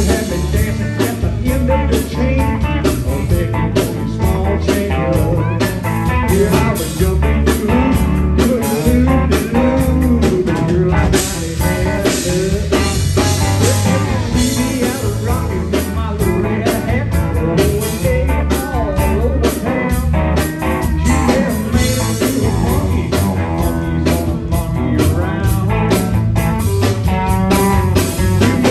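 Live band playing with electric guitar, acoustic guitar, pedal steel guitar, electric bass and drum kit, the guitar lines bending in pitch over a steady beat.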